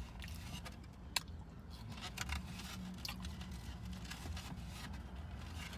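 Someone chewing and eating chicken wings, with scattered short clicks and crackles of mouth and food noise, the sharpest about a second in. A low steady rumble of the car cabin lies under it.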